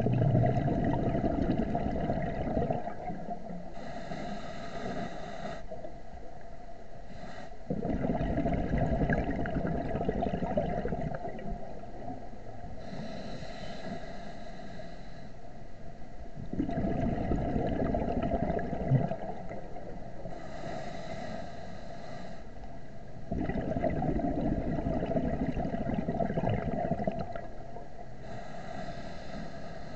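A scuba diver breathing through a regulator underwater: a short hissing inhale, then a longer, louder exhale of bubbling rumble. The pattern repeats about four times, one breath every seven or eight seconds.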